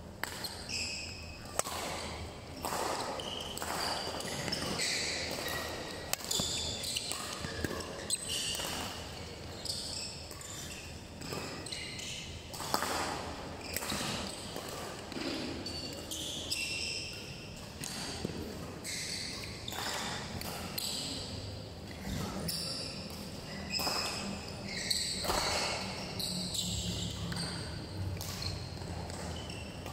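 Badminton play on an indoor court: racket strikes on the shuttlecock, sneakers squeaking on the court floor, and running footsteps, in short spells with pauses between them.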